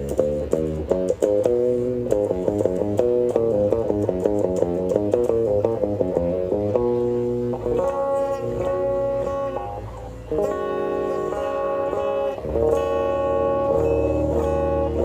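Background music: a quick picked guitar line that gives way to held chords over a steady bass about halfway through.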